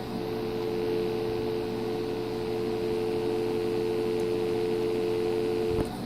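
Dial tone from the Uniden cordless phone's speakerphone: a steady two-note hum that stops suddenly near the end.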